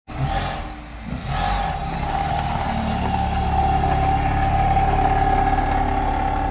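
A car's engine running as the car pulls away and drives off, a steady rumble with a steady high tone above it from about a second in.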